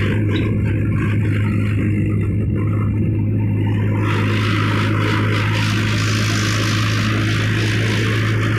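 Tractor's diesel engine running steadily while the tractor is driven along the road, a constant low drone at an even speed.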